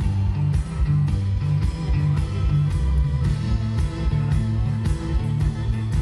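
Live rock band playing loudly: electric guitar over heavy bass and a steady drum beat.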